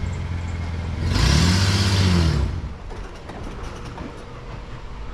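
Work truck's engine running, revving up and back down about a second in with a loud rush of noise, then settling to a quieter steady run.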